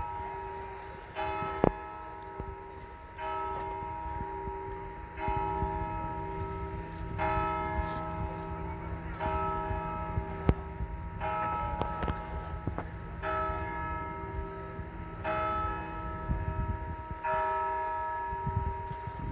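Town hall clock bell striking the hour: one stroke about every two seconds, nine times, each ringing on into the next.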